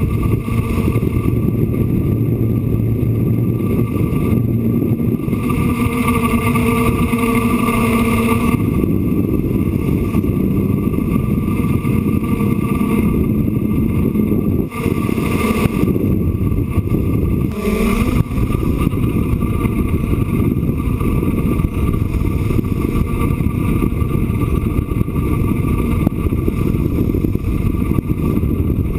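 DJI F550 hexacopter's six motors and propellers whining steadily, heard from the camera mounted on the airframe, under a heavy rumble of wind on the microphone. The motor tone shifts in pitch as the motors change speed, growing stronger about six seconds in and gliding briefly a little past halfway.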